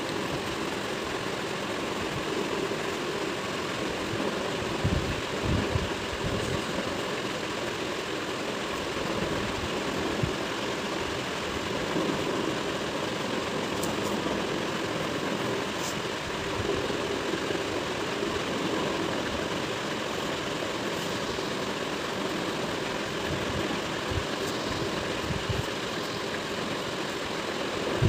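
A steady mechanical hum over a constant bed of noise, with a few soft low thumps, about five seconds in and again near the end.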